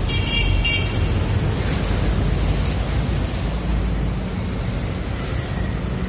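Steady low rumble of road traffic, with a vehicle horn giving two quick high beeps in the first second.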